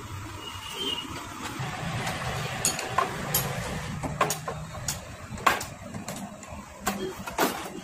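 Irregular metallic clicks and knocks, about ten sharp taps, from tools and parts being handled at a Bajaj Pulsar's front fork during fork oil seal work, over a low steady hum.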